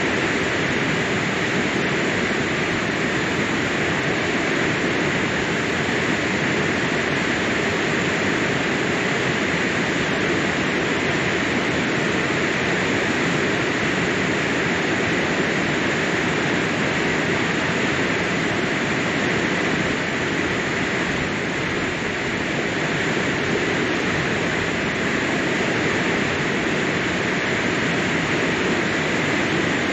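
Water from a check dam rushing steadily over and through the dam in a continuous, even roar, the stream swollen by monsoon rain.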